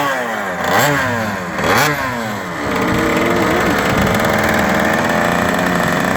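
Racing ride-on lawnmower engine revved up and down a few times, then held at a steadier, higher speed from about three seconds in.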